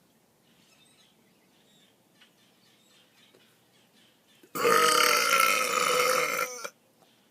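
A single long, loud burp lasting about two seconds, starting about four and a half seconds in, its pitch wavering before it cuts off sharply.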